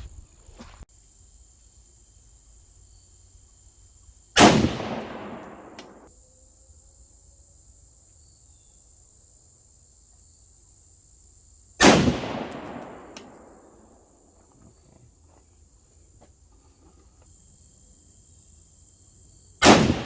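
Three rifle shots from a 20-inch-barrel 6.5 Grendel firing Wolf 100-grain ammunition, spaced about seven to eight seconds apart, each followed by an echo that dies away over a second or so. These are sighting-in shots, fired to check a scope adjustment.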